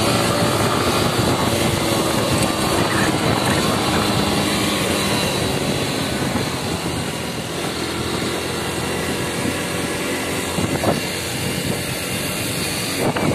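Yamaha motorcycle engine running at a steady riding speed on a dirt road, with wind rushing over the microphone.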